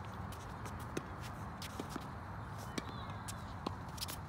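Tennis balls being struck by rackets and bouncing on a hard court during a rally. There is a sharp pop right at the start and further knocks about once a second, over a steady low background rumble.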